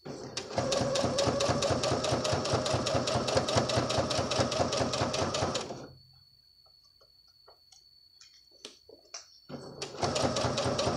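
Domestic electric sewing machine stitching a straight seam, its needle running in a rapid, even rhythm for about five seconds, then stopping. After a few seconds of quiet with small handling clicks, it starts stitching again near the end.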